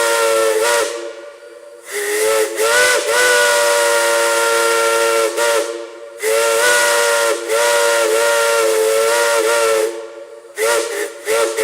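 Steam whistle sounding a chord of several notes at once. A blast ends about a second in, two long blasts of about four seconds each follow, then three quick short toots near the end. Steam hisses around the blasts.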